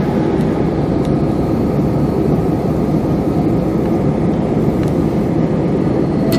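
Steady engine and airflow noise of a jet airliner in its climb after take-off, heard from inside the passenger cabin.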